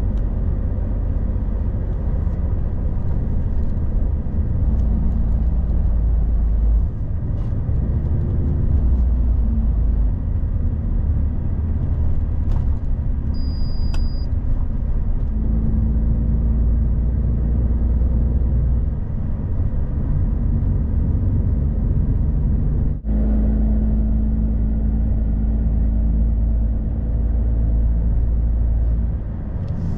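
Truck on the move, a steady low engine and road rumble, with a brief high beep about halfway through.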